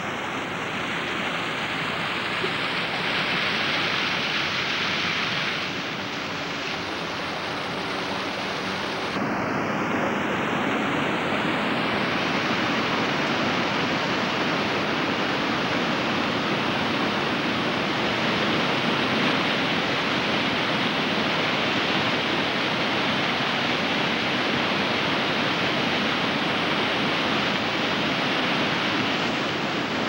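Iguazú Falls cascades rushing: a steady, heavy noise of falling water, a little louder from about nine seconds in.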